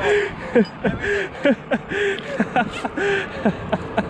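Laughing kookaburra call: a rapid run of rising-and-falling hooting notes with harsh cackles between them, breaking into quicker staccato notes near the end.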